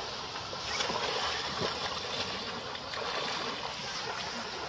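Steady splashing of a person swimming through icy river water, breaking up thin surface ice as he goes.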